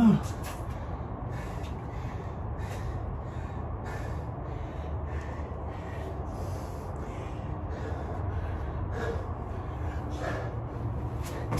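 A man breathing hard from exertion in quick, noisy breaths, with a short grunt right at the start. A low steady hum runs underneath.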